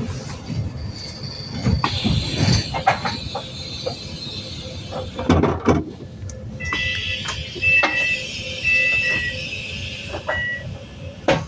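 Door warning beeps on a Wright New Bus for London: a run of short, high two-pitch beeps from about seven seconds in, over the bus's running noise and clunks. A high steady whistle sounds for the first few seconds.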